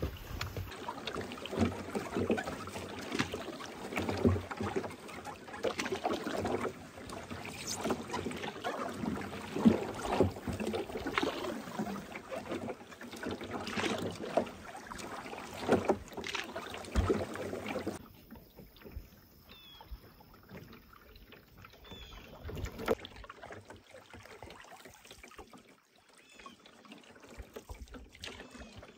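Canoe being paddled through thick lily pads: irregular paddle strokes and a dense swishing, crackling rush of vegetation dragging along the hull and paddle. About 18 seconds in it drops off suddenly to a much quieter stretch with a few faint, short, high chirps.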